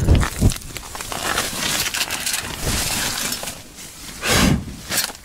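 Rustling handling noise with a heavy thump at the start and another about four and a half seconds in, then a short click.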